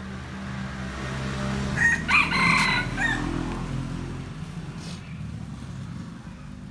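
A rooster crows once, about two seconds in, a call lasting roughly a second, over a steady low hum.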